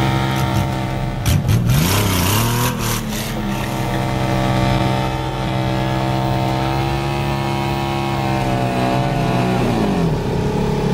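Honda Valkyrie Rune's 1.8-litre flat-six engine held at steady high revs through a burnout. Its pitch drops and climbs back about two seconds in and again near the end, with a burst of harsh noise between about one and three seconds in.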